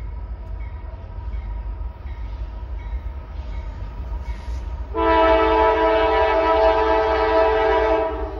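Diesel freight locomotive's multi-chime air horn sounding one long blast of about three seconds, starting about five seconds in and cutting off sharply, over a steady low rumble.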